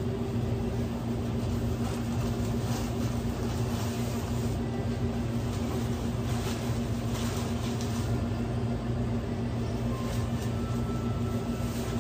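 Steady electrical hum of restaurant kitchen equipment running, with faint light clatter from sandwich-making a few times.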